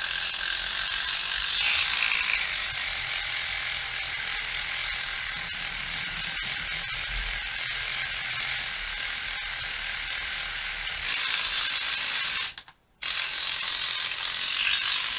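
Dspiae reciprocating sander running with a steady, high-pitched mechanical buzz as its sanding tip works inside a recess of a plastic model part. It cuts out for a moment near the end and starts again.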